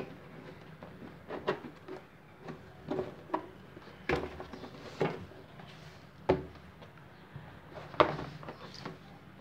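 Cardboard box of a new drill being opened and the packaging handled: a series of irregular knocks, taps and rustles, the sharpest knock about eight seconds in.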